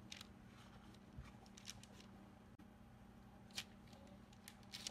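Faint crinkles and rustles of parchment paper as hands lay rounds of raw dough on it: a handful of short crackles, the clearest near the end, over a low steady hum.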